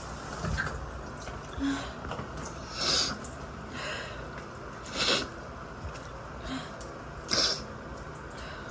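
A woman sneezing over and over in an allergic fit set off by a strongly scented body wash. Three strong sneezes come about two seconds apart, with quieter sneezes or breaths between them.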